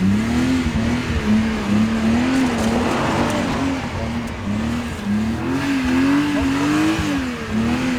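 BMW straight-six engines of an E36 M3 and an E46 330Ci held high in the revs while drifting in circles, the engine note rising and falling every second or so as the throttle is worked, with tyres squealing.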